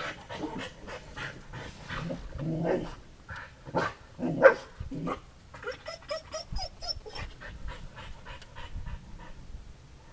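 A dog panting quickly, with a few short whines.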